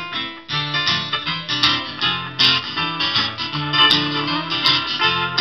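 A band playing live, led by a strummed acoustic guitar over a steady low bass line: the instrumental lead-in before the first sung verse.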